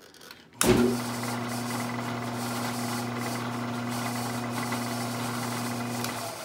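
CNC milling machine spindle switched on about half a second in, running at about 1,000 rpm with a steady low hum. It stops near the end.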